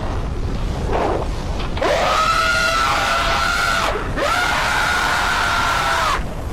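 Two long, high screams, each held about two seconds, the second following right after the first, over a steady hiss.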